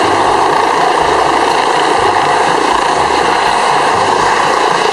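Eurocopter Dauphin-family helicopter with a fenestron tail rotor, running at flight rotor speed while hovering low and setting down: a steady, loud rush of rotor and turbine noise with a faint whine on top.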